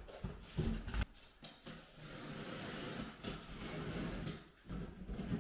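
A few short knocks and clatters, then a few seconds of rustling and scraping, as flat-pack furniture parts and their packaging are handled.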